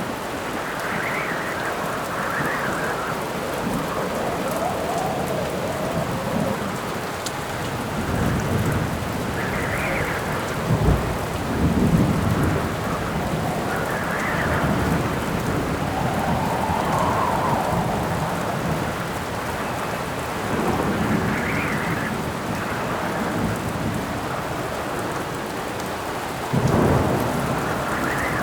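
Rainstorm: steady rain with howling wind swelling and fading every few seconds, and low rolls of thunder, loudest about eleven seconds in and again near the end.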